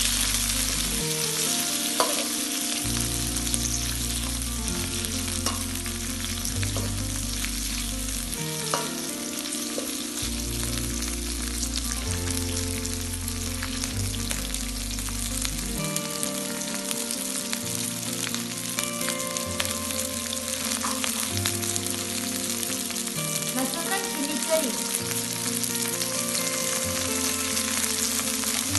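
Sliced onions sizzling steadily in hot oil in a wok. They are stirred with a metal spatula, which clicks sharply against the pan now and then.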